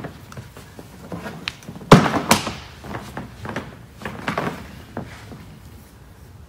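Footsteps and knocks on a hardwood floor: a loud pair of sharp knocks about two seconds in, then lighter scattered clicks and taps, with no motor running.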